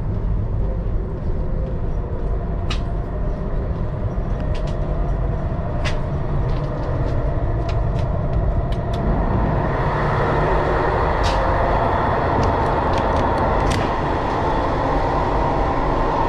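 Belgian Class 96 (AM96) electric multiple unit running on the rails: a steady low rumble with scattered sharp clicks. The running noise grows louder and hissier about ten seconds in.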